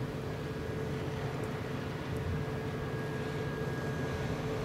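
Engines of a small warship running steadily on the water: an even low rumble with a constant droning whine over it.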